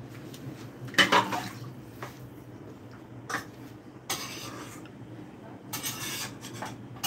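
Scattered kitchen noises: a few knocks and clatters of dishes and utensils, with short bursts of rustling, about a second in and again in the second half.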